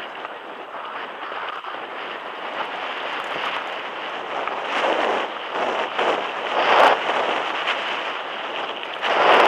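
Wind rushing over an action camera's microphone with a mountain bike's tyres rolling over a dirt track at speed. The rush swells louder a few times, most strongly near the end.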